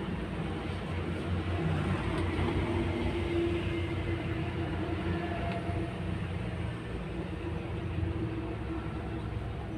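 Steady low mechanical rumble with a constant hum, from running machinery.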